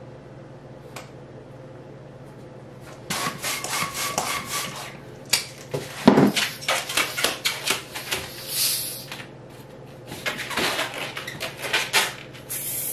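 A hand balloon pump pushing air into a long latex twisting balloon, starting about three seconds in. Then the inflated balloon is rubbed and handled as it is bent into a loop, with a run of short clicks and rubs.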